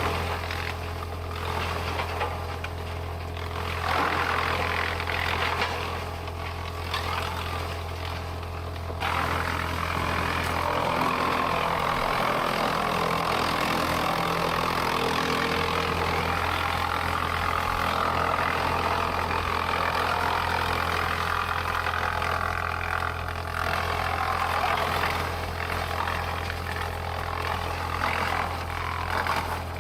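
Sawmill machinery running with a steady low engine hum; about nine seconds in a louder, higher whirring noise sets in and holds for most of the rest before easing off.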